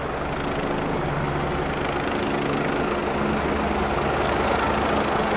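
Helicopter flying overhead: a steady rotor beat and engine hum that slowly grows louder.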